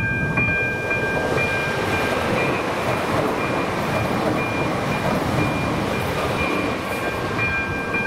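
Passenger train passing over a level crossing, its wheels rolling over the rails, while the crossing's electronic warning bell dings about once a second. The train noise eases about seven seconds in and the bell stands out again.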